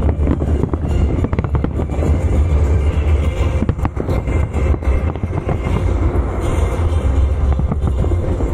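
Fireworks display firing a dense barrage of aerial shells and low bursts over the water. There is a continuous deep rumble of booms with many sharp cracks, thickest a couple of seconds in.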